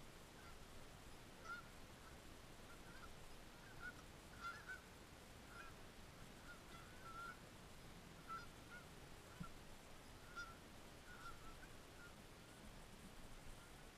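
Faint, distant honking of a flock of geese: short calls, one after another at an uneven pace.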